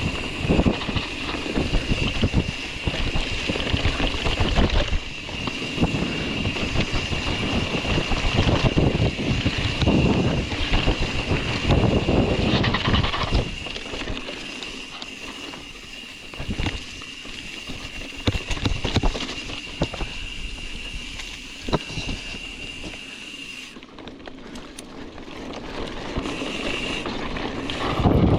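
Mountain bike riding down a rough dirt trail: wind buffeting the microphone and the bike rattling over bumps, with a steady high-pitched buzz that drops out for a few seconds near the end.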